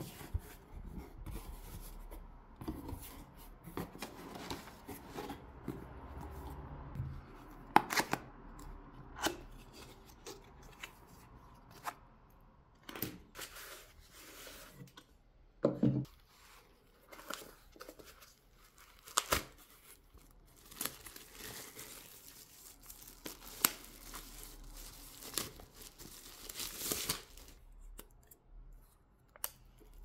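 Packaging handled by hand: cardboard flaps, crumpled packing paper and thin plastic and tissue wrap rustling, crinkling and tearing. Scattered taps and knocks of cardboard and a paper product box set down on a wooden table, one dull thump about halfway through.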